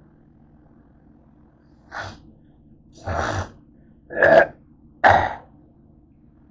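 A person coughing four times, about a second apart, the later coughs louder, over a faint low hum.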